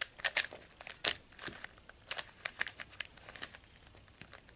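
A plastic Z-Penrose cube, a 3x3 twisty puzzle, being turned by hand through a quick move sequence. Its layers clack with rapid, irregular clicks, loudest in the first second or so.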